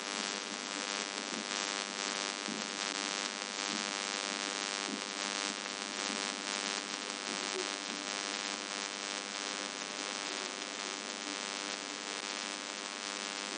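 Phone line interference: a steady static hiss with a buzzing hum of many even overtones, and faint warbling tones underneath, unbroken throughout.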